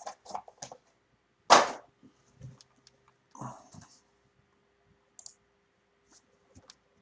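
Handling sounds from opening a sealed trading-card box: scattered light clicks and taps, with one sharp, loud, brief sound about one and a half seconds in and a softer one about two seconds later.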